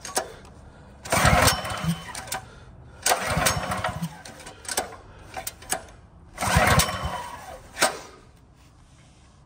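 Kohler small engine's recoil starter pulled three times, cranking the engine over on carburetor cleaner without it firing. The mechanic reads this as a spark problem, a bad plug, or a failed low-oil shutdown.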